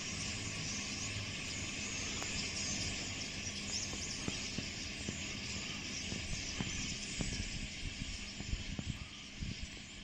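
A continuous, dense din of a large flock of birds calling together from the trees. Low thumps of wind on the microphone grow more frequent in the second half.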